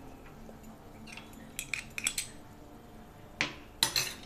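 A steel spoon clinking against a small steel bowl and small glass bowls: a few light clinks about halfway through and a louder cluster of clinks near the end.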